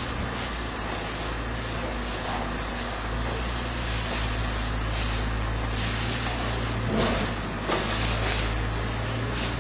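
Steady low hum of an idling engine, with small birds chirping high a few times over it: about a second in, around three seconds, and again near eight seconds.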